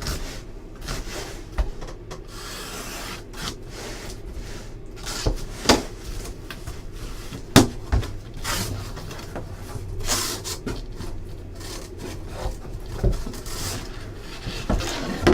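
A trading-card box and its packaging being handled and opened by hand: rubbing and scraping, with a few sharp clicks and knocks.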